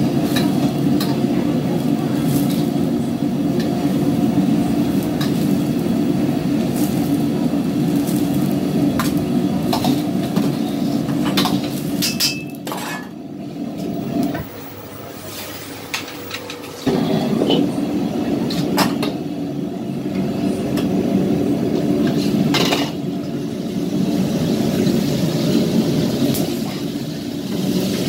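Gas wok burner running with a steady rushing noise, while a metal ladle and spider strainer scrape and clink against the wok as vegetables are stir-fried. The burner noise drops away for about two seconds midway, then comes back.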